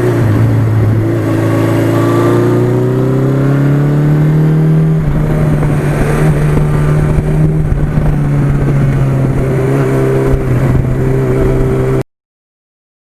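1982 Suzuki GS1100E's air-cooled inline-four engine running under way, its pitch rising for a few seconds as it accelerates, then holding steady. It cuts off suddenly near the end.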